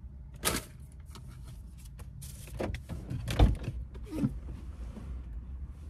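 Handling noises inside a car: scattered clicks, crackly rustling and a loud thump about three and a half seconds in, over a steady low rumble.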